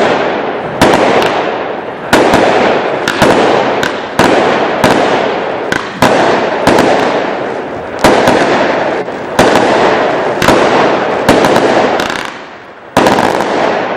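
A 100-shot 20 mm consumer fireworks cake firing in quick succession, with a loud bang about once a second and crackling hiss trailing after each. There is a brief lull near the end before one more loud burst.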